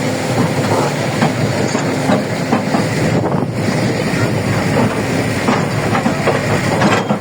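Tracked heavy equipment running steadily, with irregular metallic clanks and knocks throughout.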